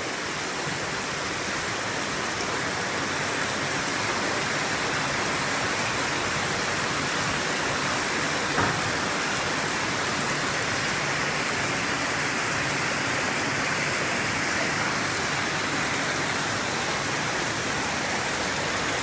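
Steady, even rush of heavy rain and fast-flowing floodwater.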